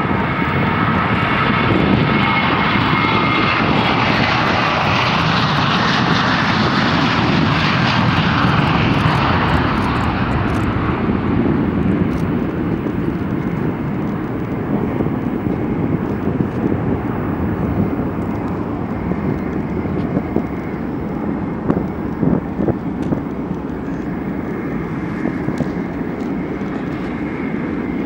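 Boeing 737-800's twin CFM56-7B turbofan engines running at takeoff power as the airliner lifts off and climbs away. A whine of fan tones rides on the loud jet noise at first; after about ten seconds the high hiss fades as it recedes, leaving a lower rumble.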